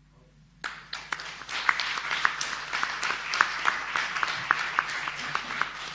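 Audience applause: after a brief near-silence, many people start clapping about a second in and keep clapping steadily.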